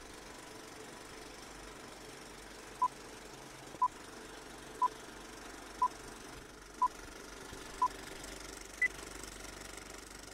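Film-leader countdown sound effect: six short beeps at one pitch, one a second, then a single higher beep, over a steady hiss of old-film noise.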